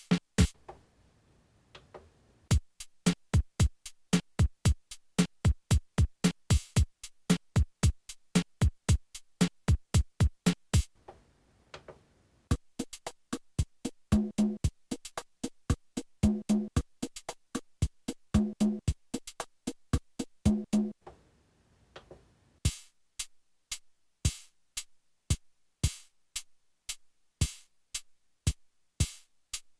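Technics SX-K200 keyboard's built-in rhythm section playing preset electronic drum patterns, with kick and other drum hits in a steady beat starting after a short pause. Chord notes sound four times in the middle, and the pattern changes to a different rhythm a little past two-thirds of the way through.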